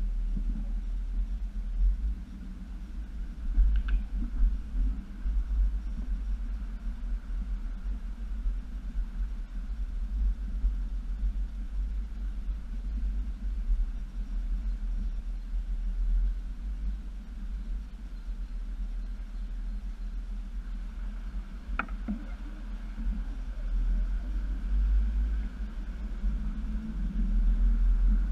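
A 2007 Jeep Wrangler JK Unlimited's 3.8-litre V6 and drivetrain crawling through a creek, heard as a heavy, steady low rumble. Two sharp knocks break through it, a few seconds in and again about twenty-two seconds in.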